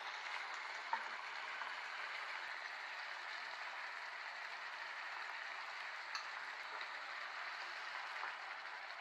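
Chicken curry simmering in a frying pan, a steady soft bubbling hiss.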